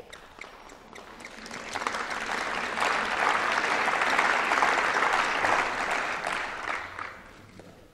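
Applause from a large seated audience, many people clapping at once. It builds over the first couple of seconds, holds, then dies away near the end.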